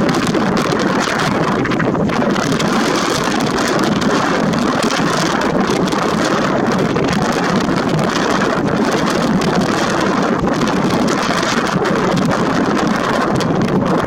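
Strong wind buffeting the microphone: a loud, steady rushing roar that flutters without letting up.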